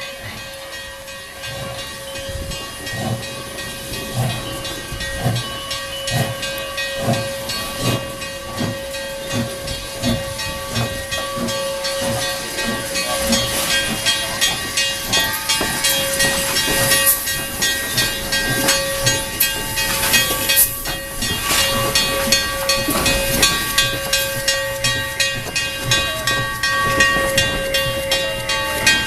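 Steam locomotive No. 7470 working, with a steady hiss of steam, a held whistle-like tone and a regular chuff of exhaust. The sound grows gradually louder as the engine draws near.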